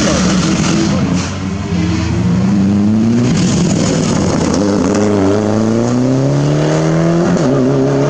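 Mitsubishi Lancer Evolution rally car's turbocharged four-cylinder engine accelerating hard as the car passes and pulls away. The engine note climbs and drops back at each of several upshifts.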